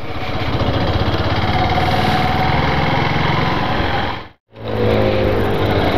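Yamaha Factor 150's single-cylinder four-stroke engine running steadily at low speed, heard from on board the motorcycle. The sound cuts out for a moment about four seconds in, then the engine resumes.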